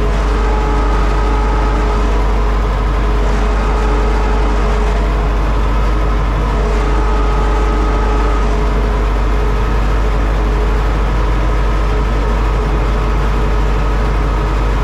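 Universal U650 tractor's four-cylinder diesel engine running steadily under load while pulling a plough, heard loud from inside the cab.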